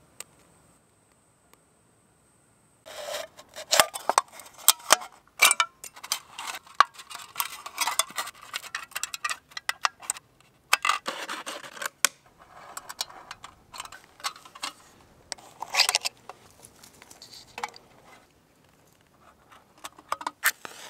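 Close-up handcraft noises: a dense, irregular run of metallic clicks, taps, scrapes and crinkles as small metal parts and a drink can are handled and worked by hand.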